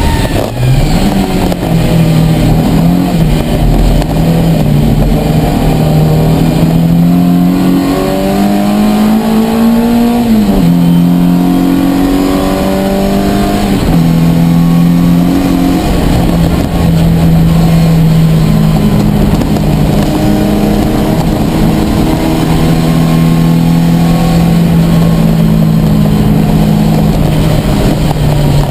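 Ford Fiesta race car's four-cylinder engine heard from inside the cabin under hard load, its note climbing in pitch and dropping sharply at gear changes, then holding a steady high note for much of the time before falling near the end.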